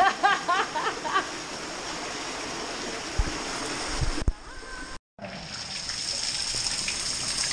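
Cave stream running, a steady rush of water close to the microphone, with a voice briefly at the start and a couple of low knocks partway through. The sound cuts out for a moment about five seconds in, then the water resumes, brighter.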